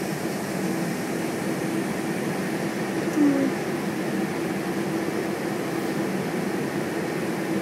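Steady hum of a semiconductor fab's air handling and process equipment, with a constant low tone running through it. A brief voice-like sound rises and falls about three seconds in.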